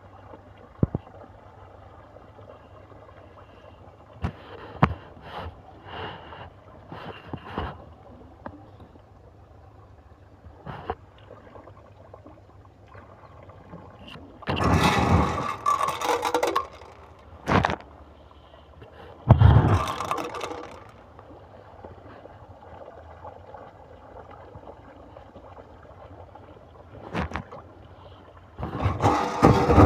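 Snakehead (murrel) fish taking feed pellets at a pond's surface: scattered sharp pops and clicks, with a few louder splashing bursts of a second or two.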